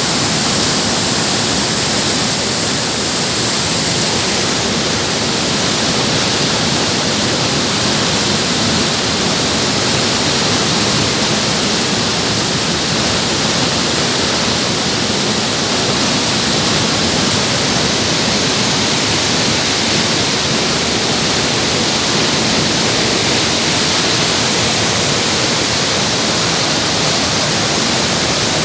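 Waterfall: water falling and splashing in a steady, unbroken roar.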